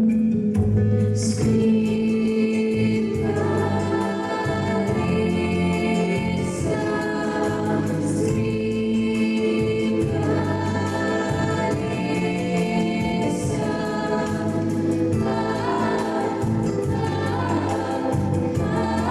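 Music: a song passage of wordless choir-like singing over sustained chords and a low bass line.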